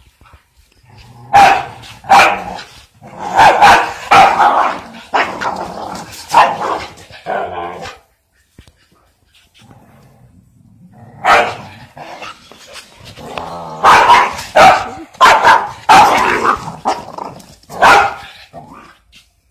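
Dog barking repeatedly at a rooster facing it down, in two bouts with a pause of about three seconds between them.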